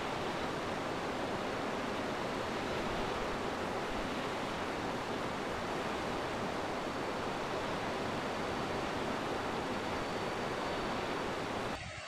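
Rushing river water, a steady even rush that cuts off suddenly near the end.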